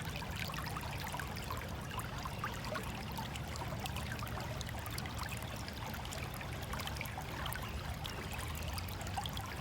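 Shallow creek water running and trickling, a steady babble over a low rumble.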